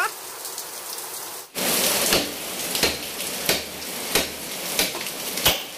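Rhythmic rough scrubbing strokes, about three every two seconds, starting after a brief break about a second and a half in.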